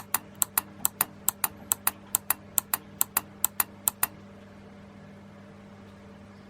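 Relays driving a model railway car retarder clicking rapidly in pairs, a pair a little more than twice a second, then stopping about four seconds in. A faint steady hum runs underneath.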